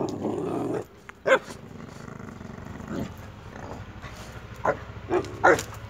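Boxer dogs play-growling, then a short bark about a second in and a quick run of short barks near the end.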